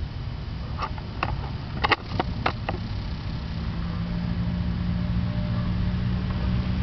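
A few sharp clicks over a low rumble, then a steady low engine hum that slowly grows louder, like a motor vehicle approaching.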